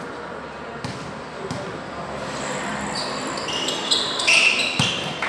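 A basketball bouncing on the hard court floor in a few sharp knocks, then a run of short high squeaks from sneakers on the court as play picks up over the last two seconds.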